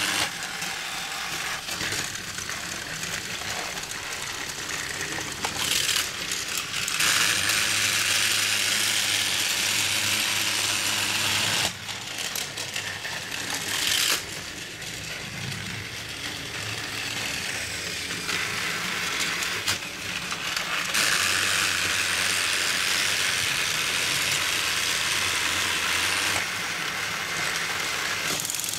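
Battery-powered TrackMaster toy engines running on plastic track, their small motors and gears whirring and rattling steadily. The sound grows louder in several stretches lasting a few seconds each.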